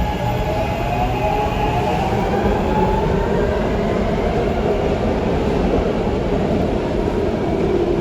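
ADtranz M4 subway train running, with its electric traction motors whining and a steady rumble of wheels on rail. The motor whine fades about three seconds in while the rumble carries on.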